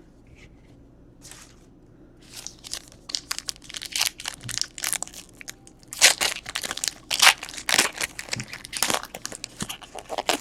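Trading card pack wrappers being torn open and crinkled, a quick run of sharp crackling rustles starting about two seconds in.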